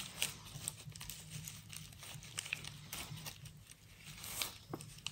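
Soft, scattered rustling and crinkling as hands loosen the cord drawstring of a small burlap sack and rub its coarse jute cloth.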